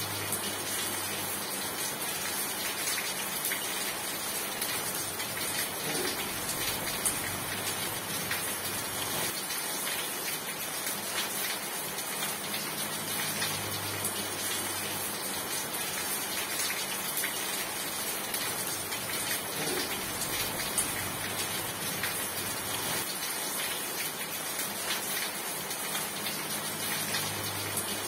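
Steady rain falling, an even hiss of many drops with no pauses.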